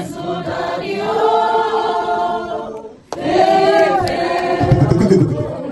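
A group of voices singing together in slow, held notes, in two long phrases with a short break about three seconds in.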